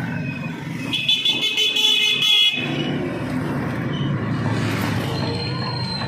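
A vehicle horn sounds about a second in, holding for about a second and a half before cutting off abruptly, over steady street traffic noise.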